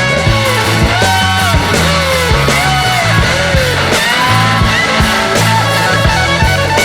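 Background rock music with guitar, its melody bending up and down over a steady bass line and beat.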